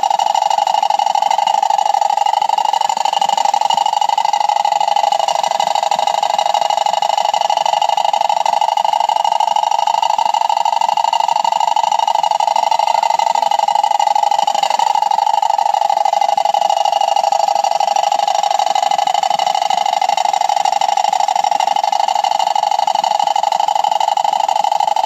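Homemade tin-can toy water wheel spun by a jet of falling water, giving a steady, loud buzzing drone with a brief wobble about halfway through, over the splash of the water.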